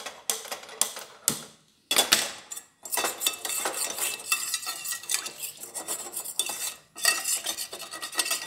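A steel spoon scraping and stirring round a stainless steel frying pan on a gas burner, working butter and spice residue loose into a little water. It opens with a few sharp metal clinks, and from about three seconds in turns into steady scraping.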